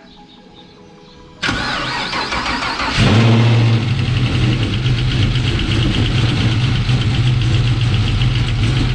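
LS3 6.2-litre V8 in a 1972 Chevelle is cranked over by its starter for about a second and a half, catches with a brief flare, then settles into a choppy idle.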